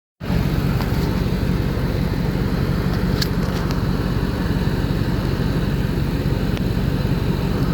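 A vehicle engine idling steadily, with a few faint clicks about a second and three seconds in.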